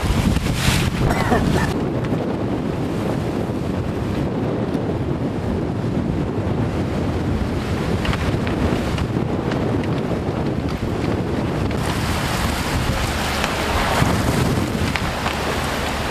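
Wind buffeting the microphone over the rush of choppy water past a sailing yacht's hull as it sails fast in strong wind. The hiss of water and wind grows brighter about twelve seconds in.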